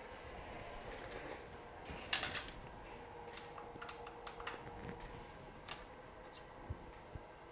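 Clicks and light clatter of iPhone 8 parts being handled and set down on a work bench: a short burst of clicks about two seconds in, the loudest, then scattered single clicks. A faint steady hum runs underneath.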